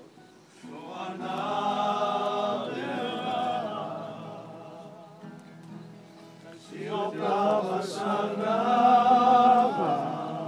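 A group of voices singing a worship song, in two loud drawn-out phrases with a softer stretch between them.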